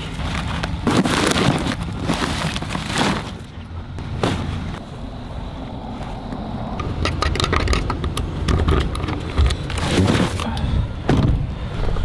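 Footsteps crunching through deep snow, an irregular run of steps that comes thickest in the second half, over a steady low rumble of wind buffeting the microphone.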